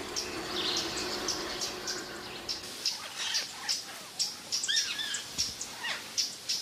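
Forest wildlife ambience: short high chirps repeating about two or three times a second, with a few lower sliding calls near the middle and a faint steady hum under the first half.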